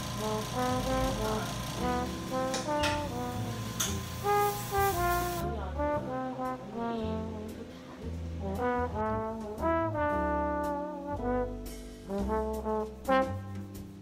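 Background music: an instrumental tune, a melody of short stepping notes over a bass line.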